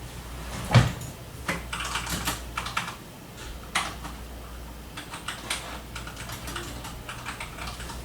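Typing on a computer keyboard: irregular runs of key clicks, with one louder knock about a second in.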